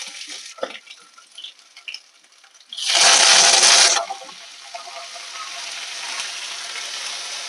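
Crushed ginger and garlic sizzling in hot coconut oil in a kadai, with a few small clicks. About three seconds in, curry leaves go into the oil and set off a loud burst of spitting and sizzling for about a second, which settles into a steady sizzle.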